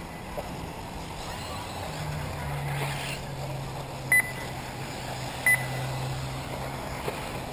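Two short, high electronic beeps about a second and a half apart, over outdoor background noise. A low steady hum comes in about two seconds in and fades near the end.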